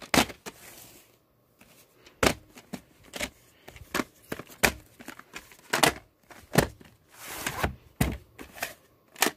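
A VHS cassette and its cardboard sleeve being handled: a series of sharp plastic clicks and knocks, with a longer scraping rustle about seven seconds in.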